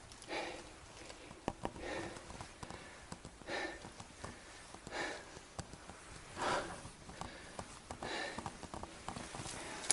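A person breathing hard while climbing a steep path on foot: heavy breaths about every one and a half seconds, with faint ticks between them.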